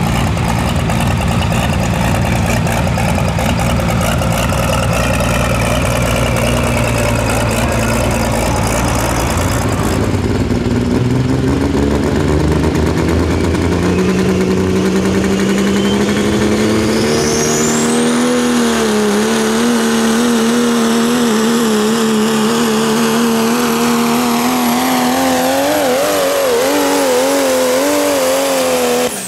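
Turbocharged engine of a pulling vehicle running hard under load: a dense rumble, then the engine note climbs and a turbo whine sweeps up to a steady high pitch about two-thirds of the way through. The engine note wavers while the whine holds, until the sound cuts off abruptly at the end.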